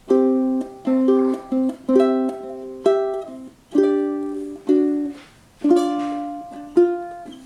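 Collings UT-1 mahogany tenor ukulele being strummed, a run of chords each struck sharply and left to ring down, roughly two a second.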